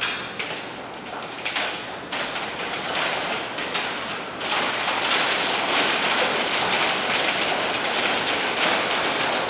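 Hail pattering on the building and its glass doors, heard from inside: a dense hiss of many sharp ticks. It grows louder and steadier about four and a half seconds in.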